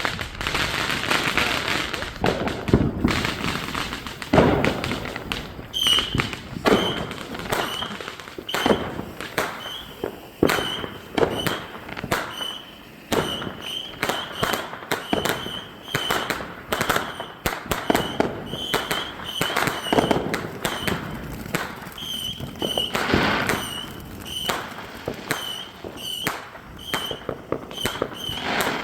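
Fireworks going off: a dense, irregular string of sharp bangs and pops, with short high-pitched tones repeating through most of it.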